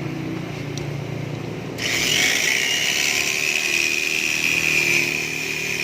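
A power tool starts up suddenly about two seconds in and runs steadily with a high whine.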